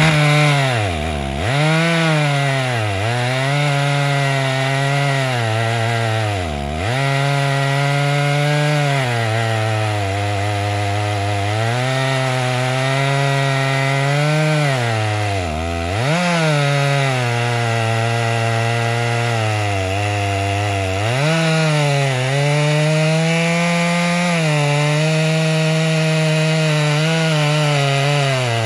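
Two-stroke chainsaw at full throttle ripping lengthwise through a large pine log in a chainsaw mill. Its engine pitch sags and recovers several times under the load. The operator finds the chain too dull for this cut.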